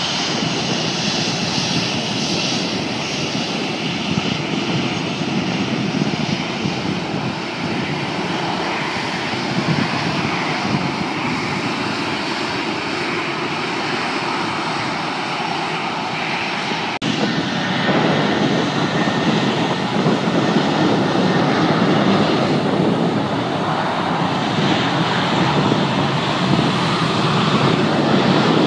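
Boeing 737 airliners' CFM56 jet engines running on the runway as a loud, steady rush of noise, heard through a phone microphone. About two-thirds of the way through it breaks off abruptly and resumes louder with a second 737.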